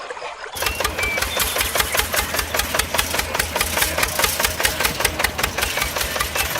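Small engine running steadily with a fast, even knocking beat, starting suddenly about half a second in: the mini DIY tractor's engine at work.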